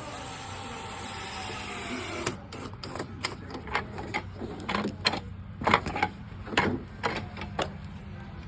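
A power drill-driver runs for about two seconds, its whine sagging slightly in pitch as it drives one of the long frame screws through the wall into its nut. It is followed by a string of irregular sharp clicks and knocks.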